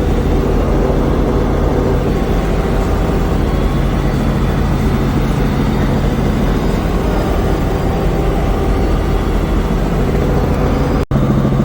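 Piston-engine helicopter running with its rotor blades turning, heard from inside the cabin as a loud, steady drone. It drops out for an instant near the end.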